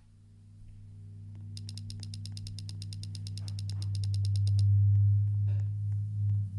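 A low humming tone swells steadily in loudness and starts to pulse near the end. A rapid run of clicks, about eight a second, goes on for about three seconds in the middle.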